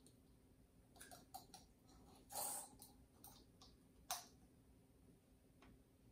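Faint small plastic clicks and taps from an ink syringe and a refillable 802 inkjet cartridge being handled while the cartridge is filled, with a brief rustling sound about two and a half seconds in and a sharper click just after four seconds.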